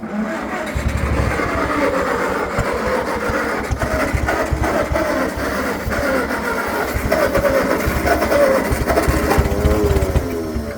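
Ford 650 tractor engine cranking over and running rough for about ten seconds, then dying away near the end. Its ignition timing is set too far retarded and is being advanced to get it running better.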